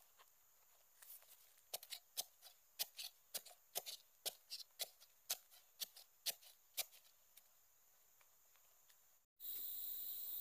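A wooden pole jabbed repeatedly into a small hole in dry soil, about a dozen sharp strikes at roughly two a second, digging out the hole. About nine seconds in, this gives way to a steady high insect drone.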